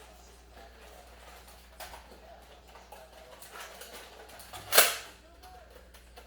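Faint rustling and scattered small clicks, then one loud, sharp pop or knock about five seconds in.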